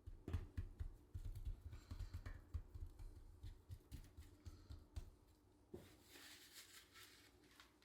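Hands rubbing dry seasoning into raw meat chunks: faint, irregular soft pats and knocks, then a couple of seconds of soft rustling near the end.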